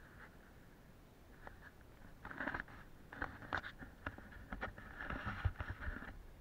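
Several short bursts of rustling and scraping with sharp clicks mixed in, the longest and loudest near the end: handling noise from the camera being moved about in the hand.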